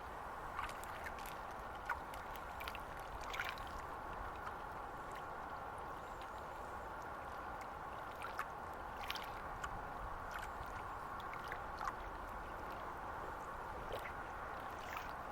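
Estuary water lapping and sloshing at the edge: a steady wash of water broken by small irregular splashes.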